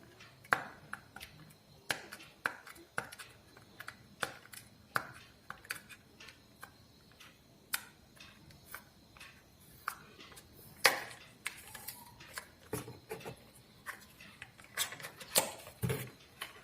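Irregular clicks, taps and knocks of a new speaker's packaging being handled and opened, with a few louder knocks near the end.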